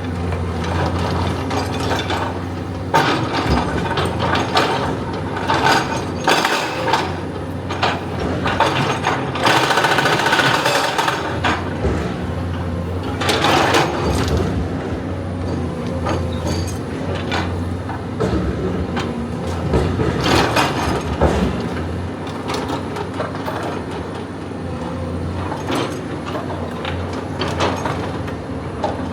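Excavator working: a steady low engine hum runs under irregular metallic clanks and rattles, with a denser burst of clatter about ten seconds in and again around fourteen.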